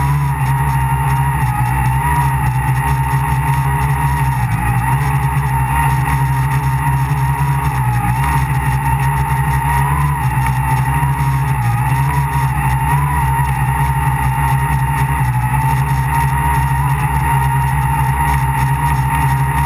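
An RC tricopter's three brushless motors and propellers, heard close up from the GoPro mounted on its frame: a loud, steady buzz with a whine on top that wavers slightly in pitch as the throttle is worked in flight.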